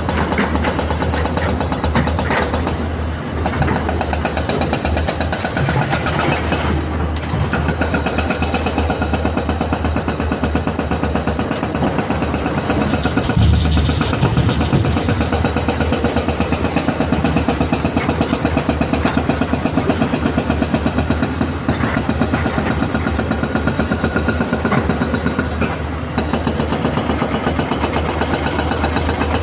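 Hyundai excavator's diesel engine running steadily as the machine works, with a fast, even throb and a low rumble; it gets a little louder briefly about halfway through.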